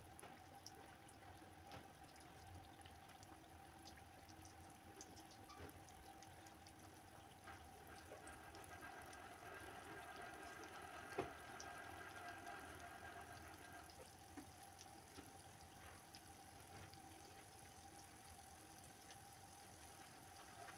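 Squares of half-cake dough deep-frying in oil in a pan: a faint steady sizzle with scattered small crackles, and one sharper pop about eleven seconds in.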